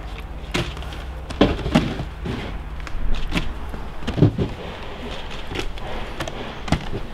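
Cardboard parcels being tossed, caught and set down on a stack, heard as a few scattered knocks and thumps, the heaviest about four seconds in.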